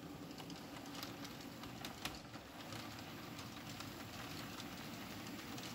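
A pair of HO scale model diesel locomotives, Proto SD9s, running slowly along the track, with a faint steady motor hum and light irregular clicks from the wheels on the rails and turnouts.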